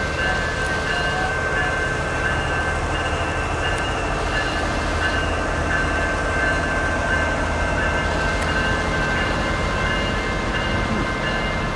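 Schnabel car and its train rolling slowly past, steel wheels rumbling on the rails. A steady high-pitched ringing tone runs over the rumble.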